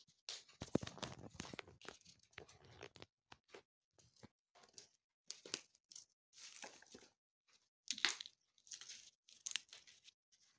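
Fresh fava bean pods being snapped and torn open by hand and the beans shelled out, with rustling of the pile of pods: a run of irregular crisp snaps and tearing sounds, the sharpest about eight seconds in.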